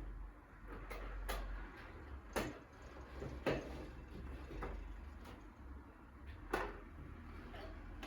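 About six separate knocks and clicks of household objects being handled, spread a second or so apart, over a low steady hum.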